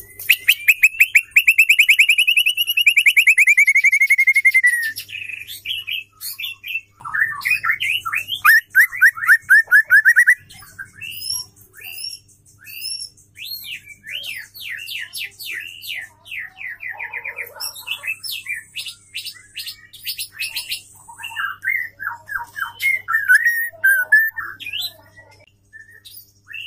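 Female white-rumped shama singing: a fast, dense trill for the first few seconds, then a quick run of repeated rising notes, then varied chattering phrases.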